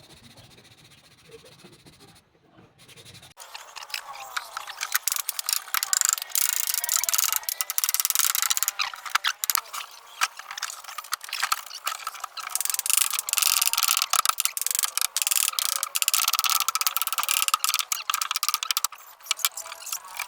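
A hand tool scraping and rubbing against wood in quick, continuous strokes, starting about three seconds in.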